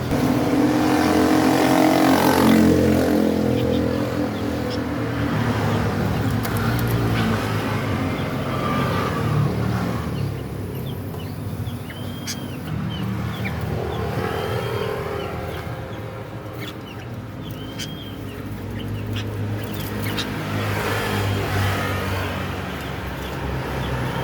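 Motor vehicles running and passing by, their engine pitch rising and falling as they come and go. A few short arching whistles sound around the middle.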